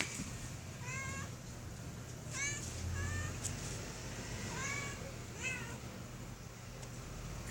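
A cat meowing repeatedly: about five short, high-pitched meows a second or so apart.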